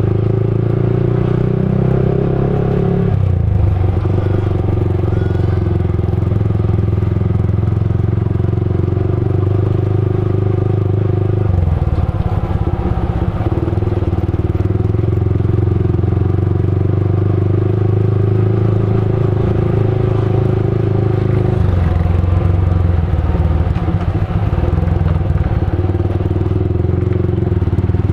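Motorcycle engine running steadily while riding, its note shifting to a new level about three seconds in, again around eleven seconds and again around twenty-one seconds.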